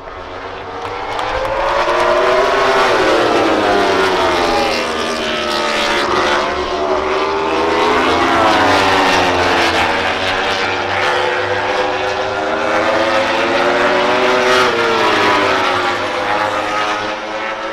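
A close pack of MotoGP four-cylinder race bikes screaming past at racing speed, several engines overlapping, their pitch rising and falling as they accelerate, shift and brake. It builds over the first two seconds and stays loud.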